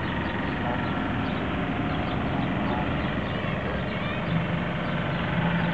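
Steady outdoor traffic rumble, joined about four seconds in by a low, even engine hum, with faint high chirps scattered through.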